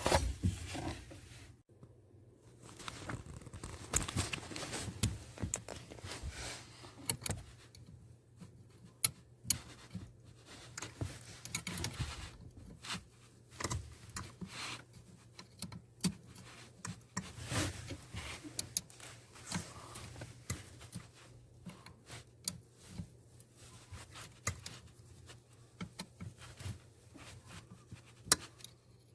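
Irregular metallic clinks, clicks and scrapes of a wrench or socket worked on the brake light switch's mounting screw at the brake pedal.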